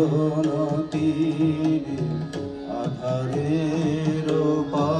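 A song sung with a melodic line over steady held tones and drum accompaniment, amplified through an auditorium's sound system.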